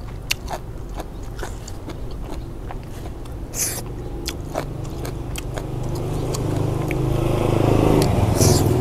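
Close-up mouth eating sounds: lip smacks, small wet clicks and chewing as a bite of braised river snail curry and greens is taken and eaten. A low hum grows louder over the last few seconds.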